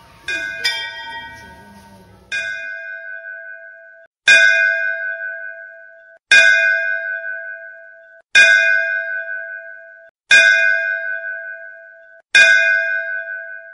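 A single temple bell struck over and over, about once every two seconds. Each stroke rings out and fades, and the ring stops abruptly just before the next stroke; two quick strokes come close together near the start.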